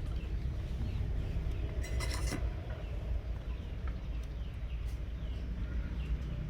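Faint, repeated short falling chirps of small birds over a steady low rumble, with a brief rustle about two seconds in.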